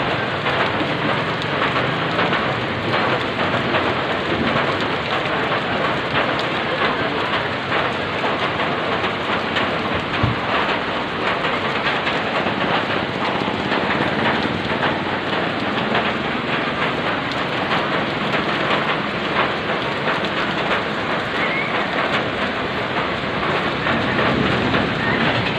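Heavy rain pouring down steadily onto a wet, water-covered street.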